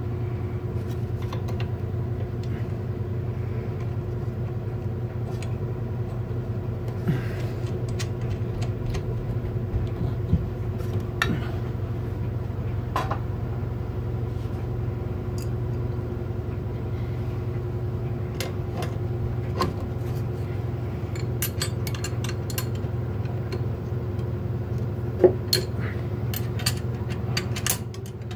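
A steady low mechanical hum with a steady tone above it. Over it come scattered light metallic clinks and taps of wrenches on the circulator pump's flange bolts and fittings, most of them near the end.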